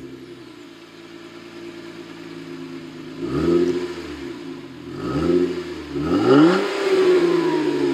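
Jeep Wrangler JK's 3.6-litre V6 through a Flowmaster Force II axle-back exhaust with an 80 Series muffler and dual tailpipes, idling steadily, then revved three times about three, five and six seconds in. The last rev climbs highest and settles back slowly toward idle.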